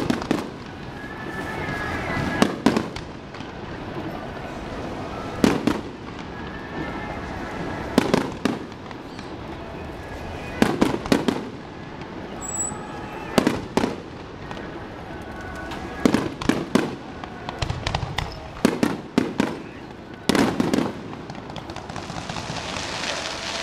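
Aerial firework shells bursting: sharp bangs every couple of seconds, some in quick doubles and triples. Near the end comes a steady crackling hiss from glittering crackle stars.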